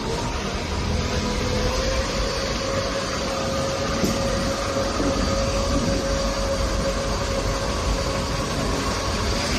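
JCB 4CX backhoe loader's diesel engine running under load, with a steady whine that rises during the first second and then holds over a broad mechanical rumble.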